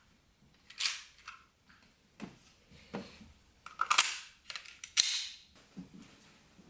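Airsoft gun being handled, with about five sharp snaps and clicks roughly a second apart.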